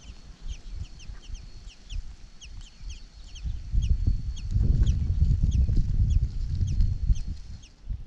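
Blackbird nestlings begging at the nest: rapid high, thin chirps, several a second, over a faint steady high whine. A louder low rumble swells from about four seconds in and fades near the end.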